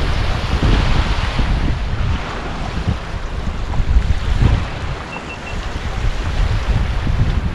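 Wind buffeting the camera microphone in uneven gusts, with a hiss of wind and water over it. Three faint, short high beeps come about five seconds in.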